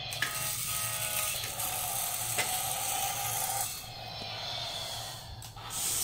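Battery-powered GeoTrax remote-control toy train running, its small motor and plastic gears whirring and rattling, with a few sharp plastic clicks.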